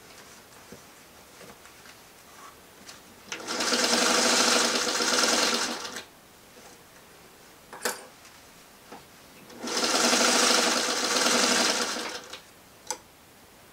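Singer 301 sewing machine running in two short bursts of about two and a half seconds each, stitching through the layered denim of a jeans hem. Between and after the runs come a couple of sharp clicks.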